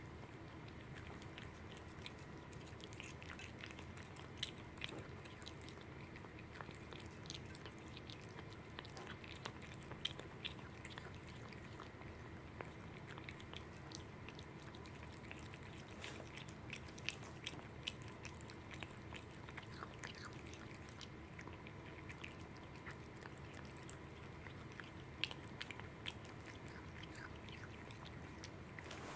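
A cat chewing and licking up small pieces of salmon off a plate: faint, wet mouth sounds with many small scattered clicks.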